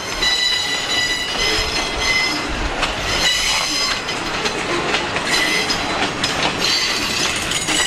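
Freight cars rolling past: loaded pulpwood flatcars and covered hoppers. Their wheels give a steady rumble and clatter, with high squealing tones that come and go.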